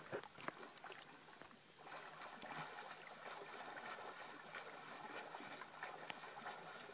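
Faint outdoor background hiss with scattered light ticks and clicks.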